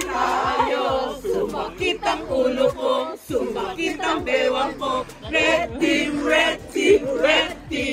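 A group of people singing together.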